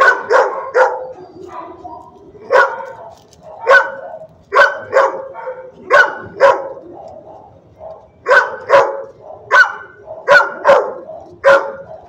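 A dog barking repeatedly: about fifteen sharp barks, mostly in pairs and short runs, with brief pauses between them.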